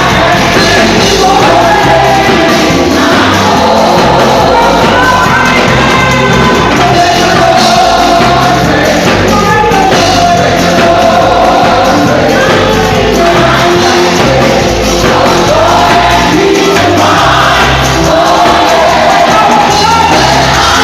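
Loud live gospel worship music: a band with a steady bass line under singers.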